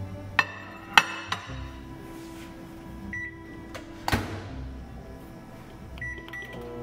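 Short high electronic beeps from a kitchen appliance: one about three seconds in and two quick ones near the end. There are sharp clicks and knocks between them, and soft background music underneath.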